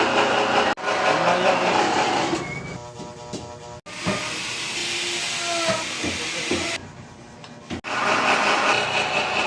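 Pellet feed machine (pelletizer) running with a steady, hissing mechanical noise. The sound cuts off abruptly several times and is quieter for about a second near three seconds in and again near seven seconds in.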